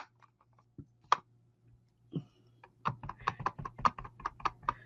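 Rapid run of light plastic clicking taps, about five a second, starting about three seconds in, after a few scattered single clicks: a clear-block rubber stamp being dabbed repeatedly on an ink pad to ink it.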